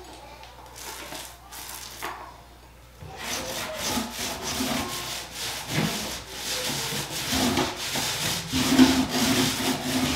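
Paint roller rolling paint onto wooden board-and-batten boards: a sticky rubbing in repeated back-and-forth strokes. It is faint at first and grows louder and denser from about three seconds in.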